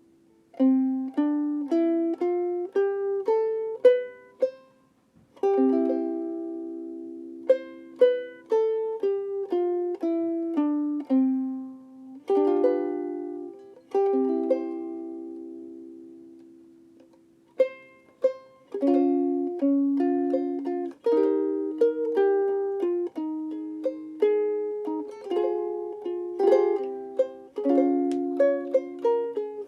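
Tkitki Style-0S17 UPT soprano ukulele, solid African mahogany body, played solo: plucked single notes and chords ringing out, with two brief pauses, about five seconds in and again around seventeen seconds.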